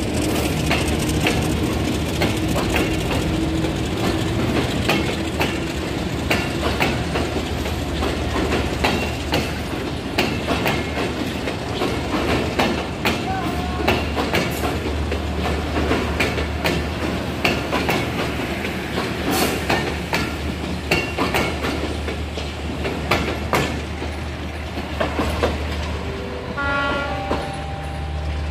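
Broad-gauge passenger coaches rolling past as a train pulls out, the wheels clicking over rail joints above a steady rumble.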